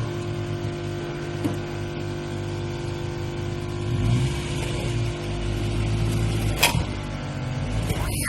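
Vehicle engine running steadily, with a sharp click about six and a half seconds in.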